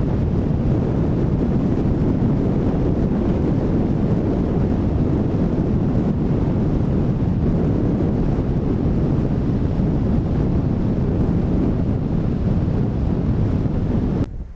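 Strong wind buffeting the microphone over the wash of rough sea. The noise is loud, steady and deep, and it cuts off abruptly near the end.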